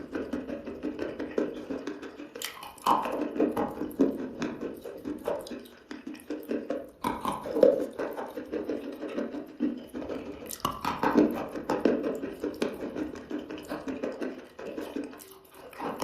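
Close-up chewing of crunchy chalk: dense, irregular crackling crunches with a few brief pauses.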